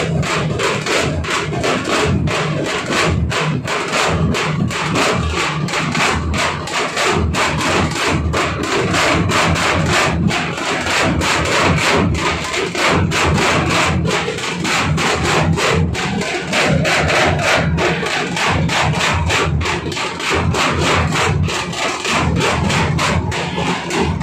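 A band of large barrel drums beaten with sticks, playing a loud, fast and unbroken rhythm of many strokes a second.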